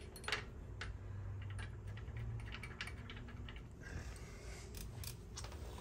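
Faint, scattered light clicks and handling noises as a small metal part is fitted back by hand on a Harley-Davidson Softail after its O-ring is oiled, with a low steady hum underneath.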